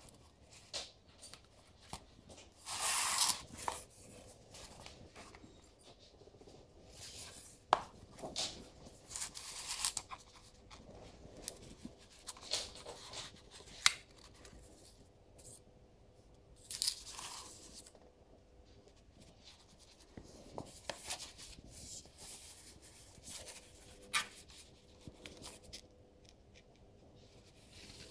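Stiff cardstock of a pop-up card being handled on a table: papery scrapes and rustles in short bursts as the card is slid, turned and opened and its paper tab pulled, with a few sharp clicks.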